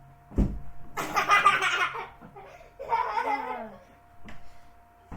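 A single thump, then a person laughing for about a second, followed by a shorter voiced laugh or exclamation that falls in pitch.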